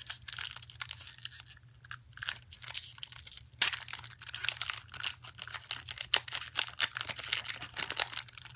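Foil Pokémon booster pack wrapper being torn open and crinkled: a dense run of sharp crackles and rustles, with one loud crackle about three and a half seconds in.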